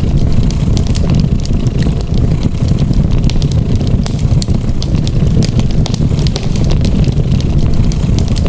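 A cat purring steadily, a continuous low rumble that dominates, layered with a wood fire crackling in many small, irregular pops.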